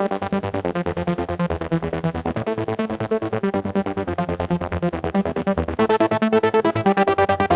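Electronic music: a synthesizer playing a fast, even pulsing pattern over a steady beat, growing fuller and louder about six seconds in.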